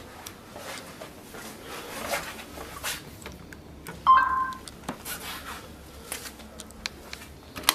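A short electronic beep, two pitches sounding together for about half a second, about four seconds in, amid scattered small clicks and handling knocks.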